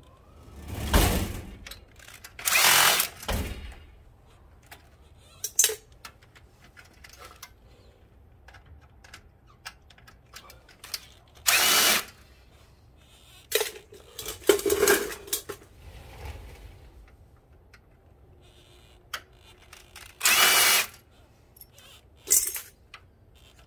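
Stanley cordless drill/driver running in several short bursts of a second or so, backing screws out of a fluorescent light fixture's steel panel. Short clicks and knocks come between the bursts.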